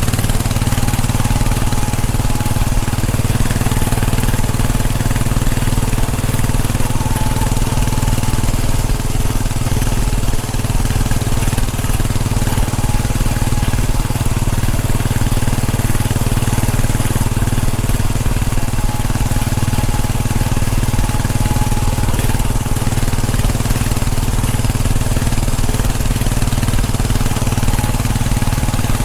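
Royal Enfield Bullet 500's single-cylinder engine running at a steady cruise, with wind noise on the microphone.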